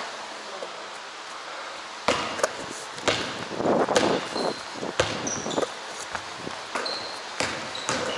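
Basketball bouncing on a hardwood gym floor: a run of sharp, irregular bounces starting about two seconds in.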